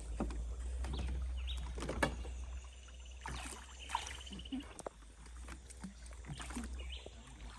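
Water lapping and splashing around a river raft on the move, with a few light knocks and ticks over a steady low rumble.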